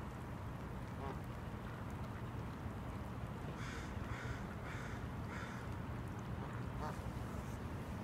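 Mallards quacking: a quick run of about five short harsh quacks in the middle, with single quacks before and after, over a steady low rumble.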